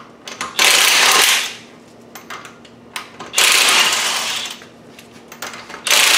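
Impact wrench hammering wheel lug bolts loose, three bursts of about a second each with small clicks of the bolts and tool between.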